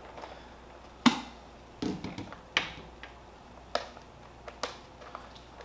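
Light plastic clicks and knocks, about six of them spread out with quiet between, the first about a second in the sharpest, from handling a plastic paint pod and an HK Army TFX paintball loader.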